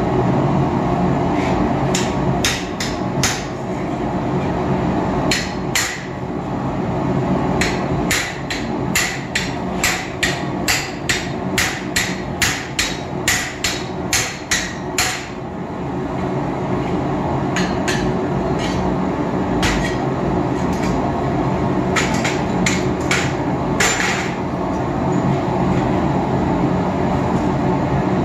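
Hand hammer striking hot steel bar on an anvil in runs of blows with pauses between, about two blows a second in the longest run, over the steady roar of a gas forge burner.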